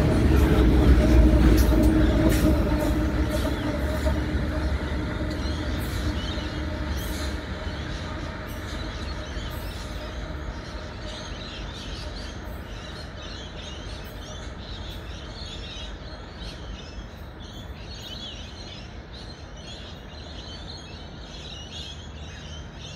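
Long loaded coal train rolling away on the main line: a low rumble with sharp clicks and clatter from the wheels on the rails, loudest at first and fading steadily as it recedes. Birds chirp over it in the second half.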